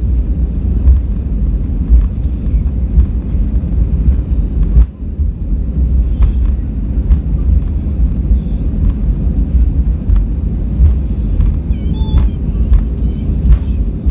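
Inside the cabin of an Airbus A320-200 rolling on the runway after landing: a heavy low rumble with frequent knocks and rattles, and a brief dip in level about five seconds in.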